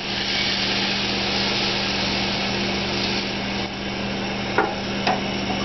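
Tomato sauce sizzling in a hot stainless saucepan on a gas range as it is poured in, a steady hiss over a low kitchen hum, easing slightly after a few seconds; two short knocks near the end.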